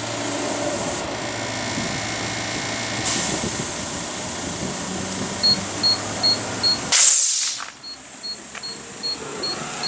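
An air-station tire inflator filling a tire over a steady machine hum. About halfway through it starts beeping, short high beeps about three a second, which signal that the tire has reached the preset 70 psi. A brief loud hiss of escaping air interrupts the beeping about seven seconds in.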